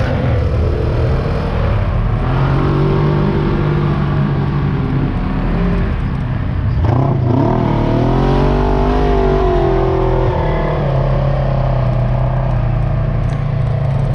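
Polaris RZR 1000 side-by-side's engine running as it drives over dirt, with the revs rising sharply about seven seconds in and then holding higher.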